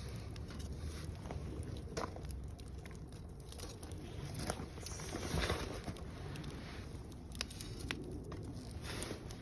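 Wood fire of mixed softwood and hardwood logs burning, crackling with irregular sharp pops over a low steady rumble; the loudest pops come about two seconds and five and a half seconds in.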